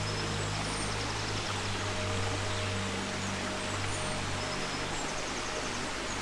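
Steady rush of a small forest stream with a few birds chirping and trilling, under soft background music of held low notes.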